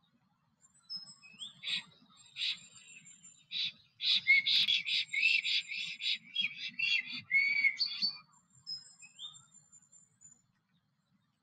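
Black stork singing on its nest: a few separate calls, then from about four seconds in a four-second run of short rasping, whistled notes at about three a second. Thin, high whistles of a small bird sound faintly near the start and near the end.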